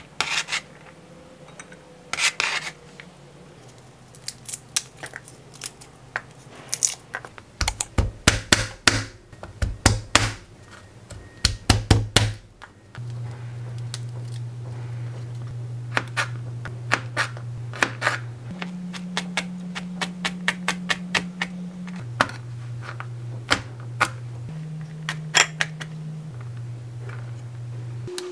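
Kitchen knife chopping onion and garlic on a cutting board: scattered sharp taps, with runs of rapid chopping in the middle. Fewer, softer sounds follow while garlic cloves are peeled, then the taps return as the garlic is minced.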